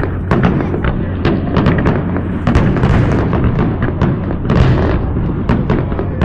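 A rapid barrage of fireworks going off: many sharp bangs and pops, several a second, overlapping over a continuous low rumble.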